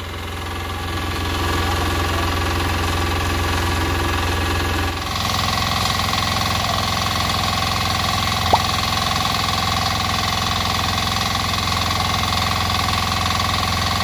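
Small engine of a portable concrete mixer running steadily as the batch mixing starts, getting louder and harsher about five seconds in. One brief click about eight and a half seconds in.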